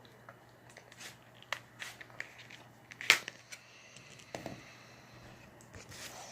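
Faint clicks, taps and light scrapes of a smartphone being handled and pried open by hand, with one sharper click about three seconds in.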